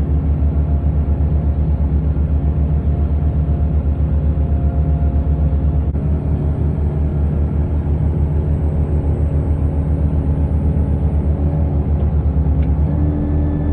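Case backhoe's diesel engine running hard under load with a steady throb, its note shifting up about a second before the end.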